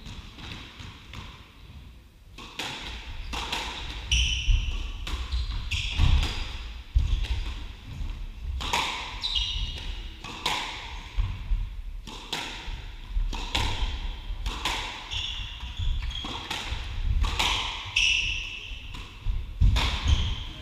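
Squash rally: the ball striking rackets and the court walls in sharp cracks at uneven intervals, with short high squeaks from players' shoes on the wooden court floor.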